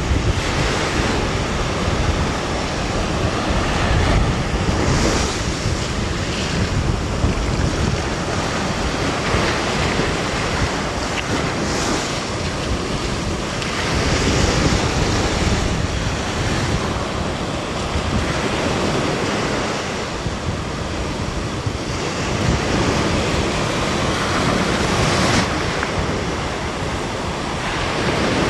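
Small waves breaking and washing up over sand, the wash swelling and ebbing every few seconds, with wind buffeting the microphone.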